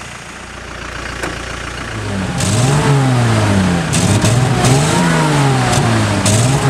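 Land Rover engine revving up and down over and over, its pitch rising and falling about once a second. It starts about two seconds in, under a loud hissing rush of noise.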